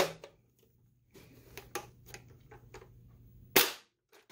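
Foam Nerf darts from a launched bundle landing and scattering, heard as faint, irregular light taps and clicks. One sharp, much louder knock comes about three and a half seconds in.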